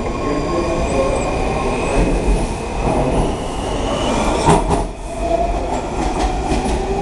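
Washington Metro Red Line train moving along the track: a steady rumble with high, held squealing tones from the wheels, and a few sharp clacks about four and a half seconds in.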